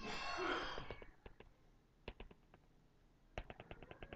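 A breath out, then a stylus tapping on a tablet's glass screen as it dots in a curve: scattered faint taps, then a quick run of about eight taps a second near the end.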